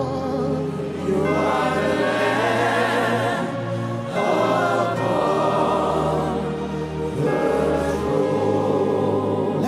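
Slow gospel worship song: a group of voices holding long sung notes with vibrato over sustained low accompaniment chords that change every couple of seconds.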